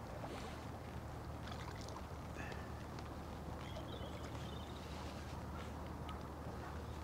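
Faint water sloshing and light splashing as a hooked carp is played close to the bank, over a steady low rumble.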